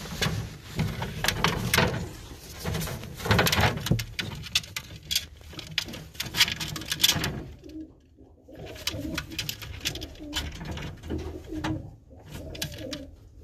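Baku fighting pigeons cooing, a low call repeated through the second half. Rustling and knocks fill the first half.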